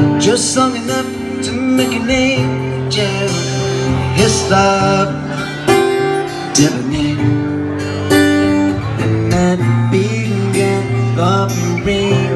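Acoustic guitar played live: quick picked melody notes and strummed chords, over held low bass guitar notes.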